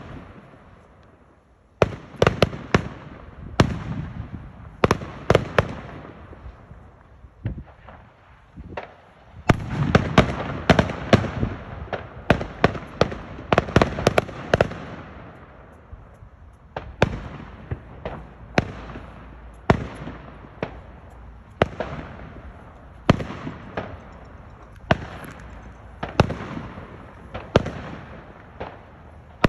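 Fireworks display: aerial fireworks going off in a string of sharp bangs, each trailing off. There is a dense run of overlapping bangs about ten seconds in, lasting about five seconds.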